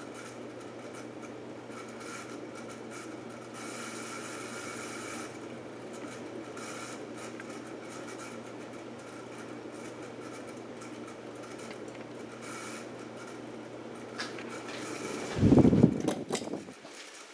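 40-inch ceiling fan running on high speed: a steady motor hum and whir of air with some bearing noise. Near the end there is a loud clatter with clicks, after which the motor hum drops away.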